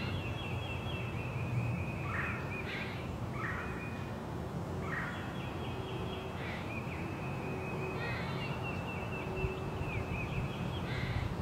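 Spring forest ambience: birds sing long, high trills one after another, overlapping, over a low, steady rumble of wind.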